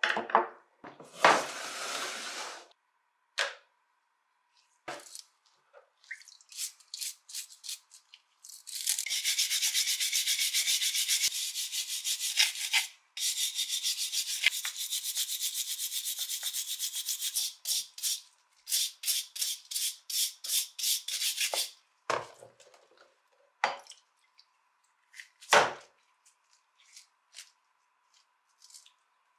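A stiff-bristled scrub brush scrubbing rust off the parts of an old wrench in a tub of foamy liquid, in long runs of fast strokes through the middle and shorter spells after. A few knocks and handling sounds at the start, and scattered knocks near the end.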